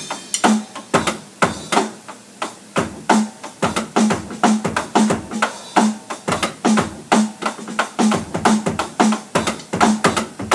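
Electronic drum kit playing a steady sixteenth-note groove, with the hi-hat opened on the 'e' of the beat and the bass drum doubling each open hi-hat.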